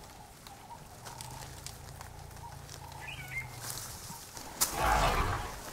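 Outdoor wildlife ambience: a low steady hum with faint scattered clicks, and a small bird chirping briefly about three seconds in. Near the end comes a louder rushing noise lasting about a second.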